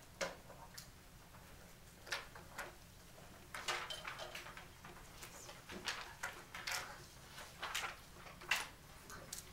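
Classroom handling noises: a string of short taps, scrapes and rustles from desks, paper and pencils, scattered irregularly with no steady rhythm.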